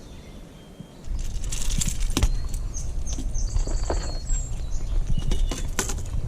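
A hooked fish splashing and thrashing at the surface as it is fought in on rod and reel, with irregular sharp splashes and clicks over a low rumble that starts about a second in.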